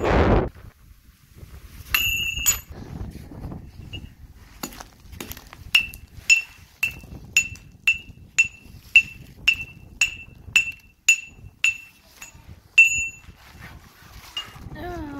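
A short burst of loud noise cuts off half a second in. Then a railroad grade-crossing bell rings in evenly spaced single strikes, about two a second, each with a bright ringing note that dies away fast.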